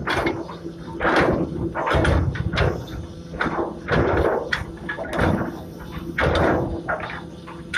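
Anchor chain being heaved in by the windlass, clanking in loud knocks about once a second over a steady hum.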